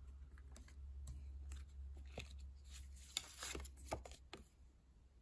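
Lenormand oracle cards being handled: faint papery slides and light taps as one card is set down and the next drawn, over a low steady hum.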